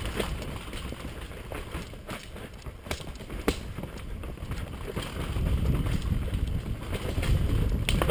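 Mountain bike riding down a dirt and root forest singletrack: a low rumble and rattle from the tyres and bike, with scattered sharp knocks and clicks over bumps, getting louder near the end.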